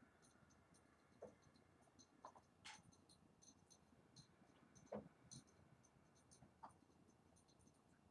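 Near silence: quiet room tone with faint, scattered small clicks and ticks.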